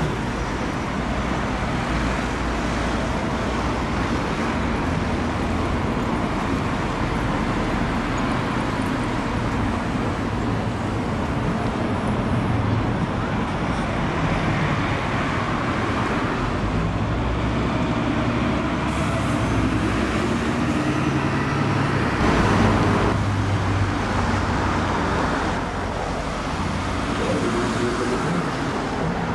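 Steady town-centre road traffic: cars and a double-decker bus running along the street, engine rumble and tyre noise, swelling briefly about three-quarters of the way in.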